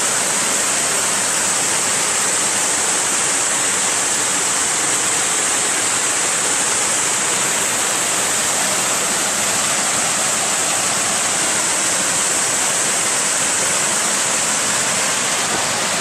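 Waterfall cascades rushing steadily: a constant loud hiss of falling water, unchanging throughout.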